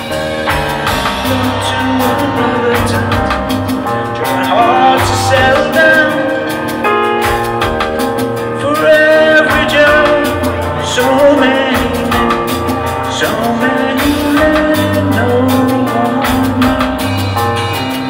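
Live rock band playing, with electric bass guitar and drum kit under a singing voice over a steady beat.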